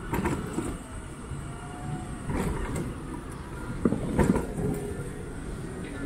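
Town street noise: a steady rumble of passing road traffic, with a few short knocks and clatters around the middle.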